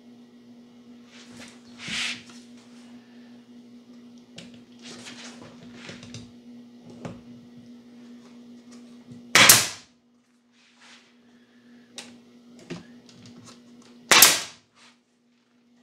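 Pneumatic nailer firing twice, about five seconds apart, each shot a sharp crack with a brief rush of air as it drives nails into the wooden boards of a jig. Lighter clicks and knocks of the boards being handled and positioned come between the shots.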